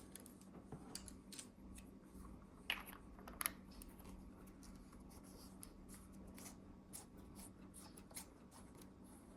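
Quiet handling of a thermal riflescope: scattered light clicks and rubs of its plastic and metal body in the hands, the sharpest about three and a half seconds in, over a faint steady hum.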